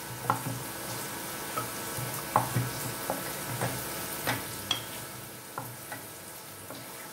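Hot mustard oil sizzling steadily in a frying pan as fried potato halves are lifted out with a wooden spatula, with several sharp taps of the spatula spread through.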